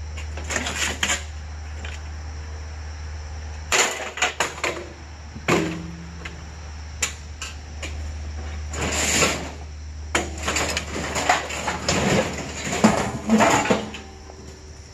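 Knocks and clatter of hard items being handled and set down, over a steady low hum.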